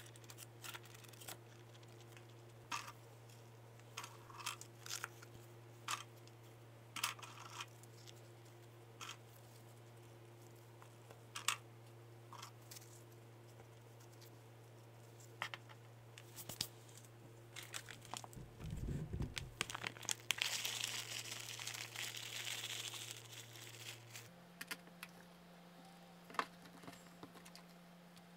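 Light clicks and taps as whole Oreo cookies are set down one by one onto whipped cream in a parchment-lined plastic container. About 19 s in comes a dull bump, followed by a few seconds of rustling.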